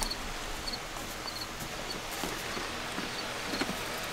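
Sheep eating dry hay: soft rustling and crackling of the hay as they nose through it and chew, with a few slightly louder crackles. Faint high chirps repeat in the background.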